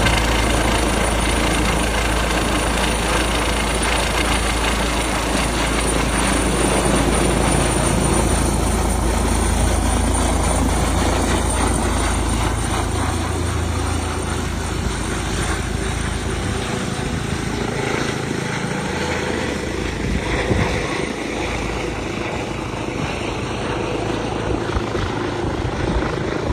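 Helicopter running, a steady dense noise with a thin high whine over it; the deep low rumble drops away about halfway through.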